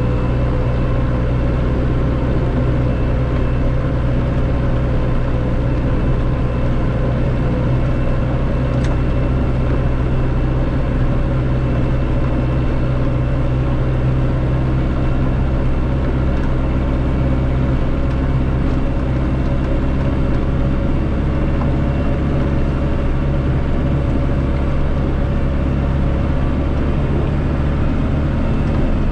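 Massey Ferguson 5445 tractor's 4.4-litre Perkins common-rail diesel running steadily.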